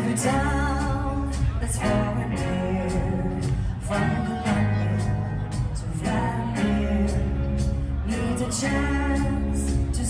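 Background music: a song with a singing voice over a steady beat and a strong bass line.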